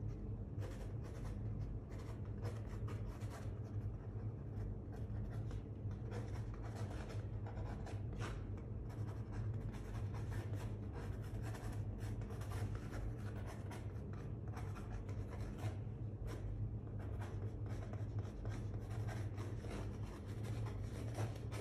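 Pen scratching on sketchbook paper in quick, repeated sketching strokes, over a steady low hum.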